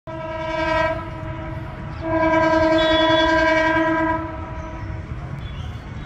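DEMU (diesel-electric multiple unit) train's horn sounding twice: a short blast of about a second, then a longer blast of about two seconds, over a steady low rumble.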